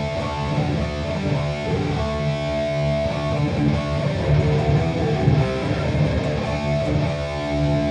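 Electric guitar played through a Boss Katana Gen 3 amp, with chords and notes ringing on. Contour 3 is engaged, which pushes the upper mids.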